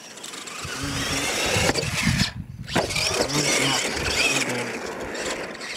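Radio-controlled monster truck's motor whining as it drives over a dirt track, rising and falling in pitch with the throttle. The whine breaks off briefly about two and a half seconds in, then resumes.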